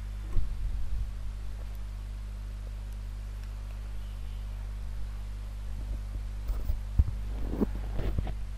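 Steady low electrical hum, with a sharp bump about a third of a second in, a few soft knocks in the first second, and a cluster of short knocks and bumps in the last two seconds.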